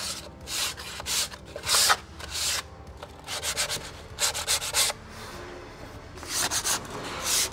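Hand sanding of wooden stair treads and risers, abrasive rubbing in quick back-and-forth strokes that come in bursts with short pauses: a quick sand down to prep the stairs before cladding.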